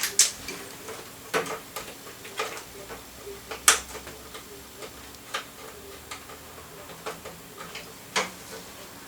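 Irregular sharp clicks and taps of small plastic parts and connectors being handled and plugged in during a PC build, the loudest a little under four seconds in, over a faint steady hum.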